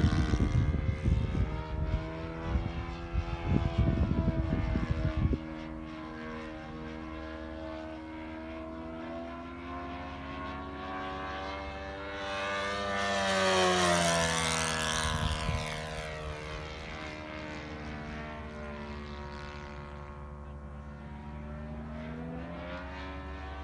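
Magnum .90 four-stroke glow engine of a Great Planes Little Toni RC airplane running steadily in flight. It grows louder about halfway through as the plane passes, and its pitch falls as it goes by. A low gusting rumble lies over the first five seconds.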